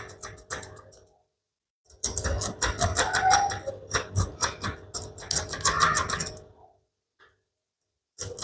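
A doubled strip of sandpaper rubbed quickly back and forth through a narrow slot in a small wire-holding comb clamped in a bench vise: quick rasping strokes, several a second, widening the slot so a tight wire will fit. The rasping stops briefly about a second in and again near the end.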